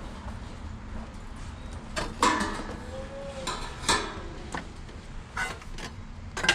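Stainless steel sheet metal pieces clanking and knocking as they are handled and test-fitted into a vehicle floor, several sharp metallic knocks at irregular intervals, some ringing briefly.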